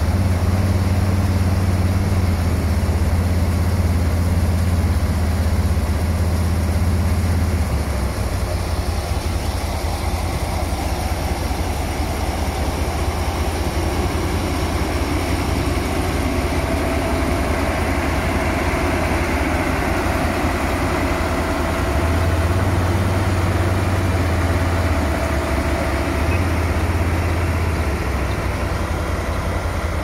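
Deutz-Fahr 36.10 chamomile harvester running steadily as it works the crop, its diesel engine and picking mechanism making a continuous mechanical din. A deep engine hum swells for the first several seconds and again near the end, and a faint steady whine runs through the middle.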